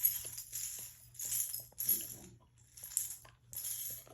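Repeated short bursts of rustling and jingling, about two a second, with light taps and a brief low sound about two seconds in.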